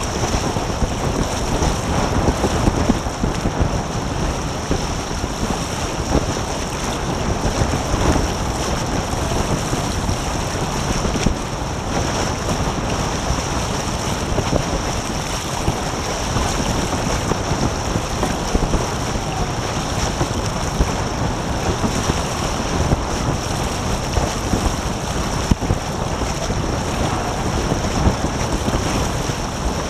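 Wind buffeting the microphone and water rushing past the hulls of a Taipan catamaran sailing at speed: a steady, dense rushing noise.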